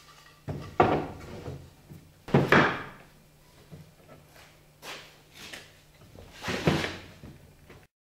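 Douglas fir 2x4 truss pieces being set down and positioned on a plywood sheet: about five sharp wooden knocks spread a second or two apart. The sound cuts off abruptly near the end.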